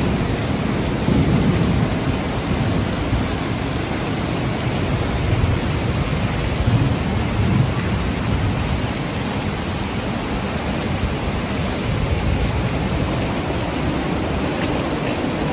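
Heavy rain pouring steadily onto pavement and flooded ground, a dense, even hiss with a strong low rumble underneath.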